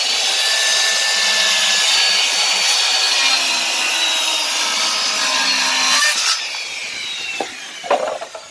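Electric power saw cutting through plywood, its motor whining loudly under load for about six seconds. The cut then ends and the blade spins down more quietly, followed by a couple of short knocks near the end.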